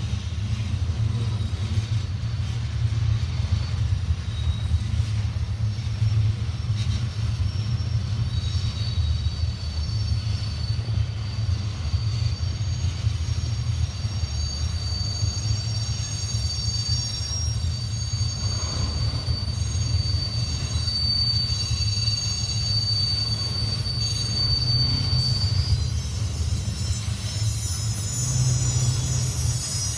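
Freight train cars, tank cars and then autoracks, rolling steadily past with a continuous low rumble of steel wheels on rail. A thin, high-pitched squeal comes in about a quarter of the way through and runs until near the end.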